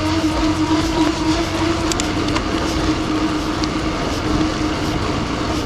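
Mountain bike tyres rolling steadily on pavement: a continuous hum with a rushing noise under it and a few faint ticks.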